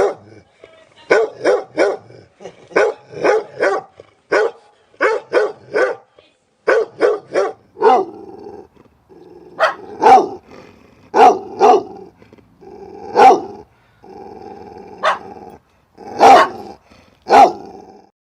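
A dog barking over and over in quick runs of two or three barks. From about eight seconds in, it growls between the barks.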